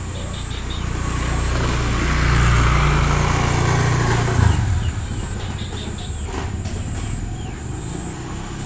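An engine running steadily with a low drone. It grows louder about two seconds in, gives a sharp knock at about four and a half seconds, then settles back to a lower level.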